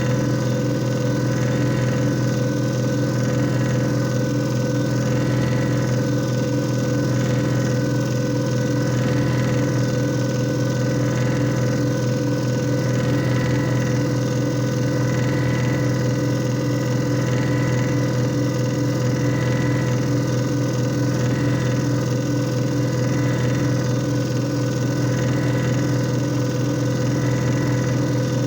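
JFJ Easy Pro disc repair machine running through a repair cycle: its electric motor gives a steady, unchanging hum with a few constant tones.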